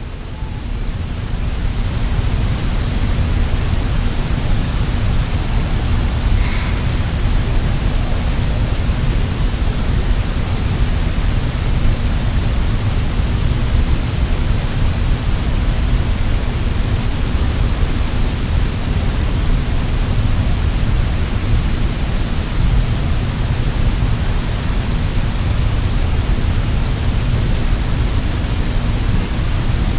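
A steady, loud rushing hiss like static, fading in over the first couple of seconds and then holding even, heaviest in the low end, with a faint low hum under it.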